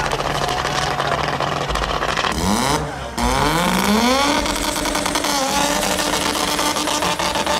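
Car engine running steadily, then revving hard with a rising pitch. It dips briefly about three seconds in, climbs again and holds a steady higher note.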